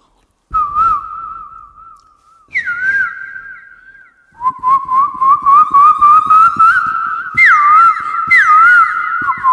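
A man whistling by mouth in imitation of a bird's song. It starts as a wavering note and steps up to a higher one after a brief gap. Then comes a run of repeated calls that climb in pitch and swoop down and back up, louder toward the end.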